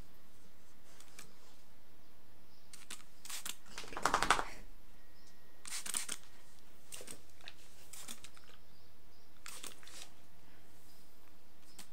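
Hand-held plastic spray bottle squirting water in short hissing spritzes, about half a dozen spread out, with a louder, fuller burst about four seconds in.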